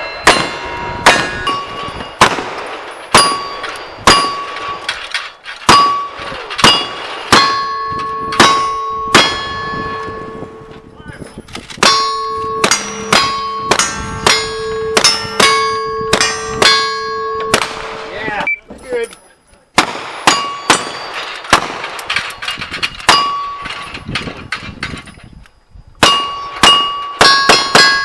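A rapid string of gunshots from a single-action revolver and then a lever-action rifle at steel targets, often about two shots a second. Each hit is followed by the ringing clang of the struck steel plate. There are short pauses, a little past halfway and again near the end, between strings of shots.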